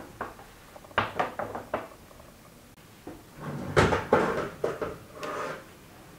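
A round metal cake pan is drawn out of a domestic oven over its rack, with scraping and clattering, loudest about four seconds in. A few light clicks and knocks come about a second in.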